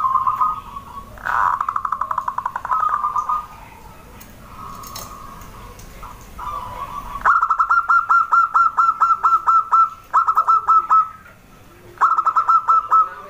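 Zebra doves (perkutut) cooing: several runs of rapid, short, evenly spaced notes, separated by brief pauses.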